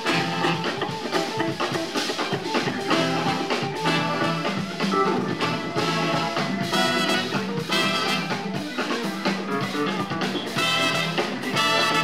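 Live jazz-fusion band with a horn section of two trumpets and a tenor saxophone playing over electric bass and drum kit. Several loud held horn chords come in the second half.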